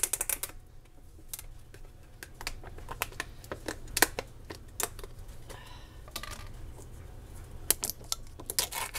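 Scattered light clicks and taps of plastic containers and lids being handled, clustered at the start and near the end, over a low steady hum.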